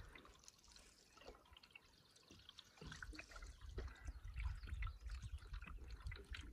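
Faint trickling and dripping of lake water around a moving canoe, small waves lapping the hull. From about three seconds in, an uneven low rumble of wind buffeting the microphone joins it.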